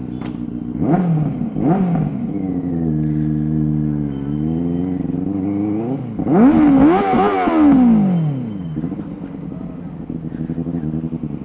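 Benelli 600i's inline-four engine through dual SC Project slip-on exhausts, revved while the bike stands still. Two quick blips come about a second in, then the revs are held somewhat higher, and one long, high rev rises about six seconds in and falls back to idle.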